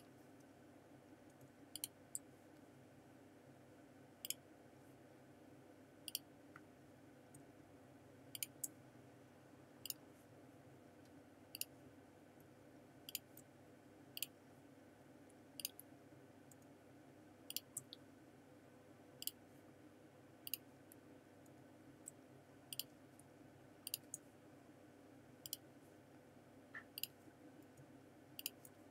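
Computer mouse clicking, a short click every second or so with some in quick pairs, over a faint steady hum. These are the clicks of selecting mesh points and swatches while Shift is held.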